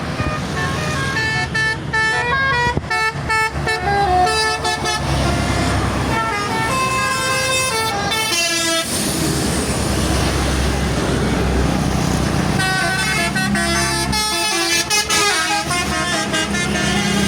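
Bus's Basuri telolet musical horn playing a melody of short stepped notes in two runs, the first ending in a rising sweep, over the low rumble of the bus engine.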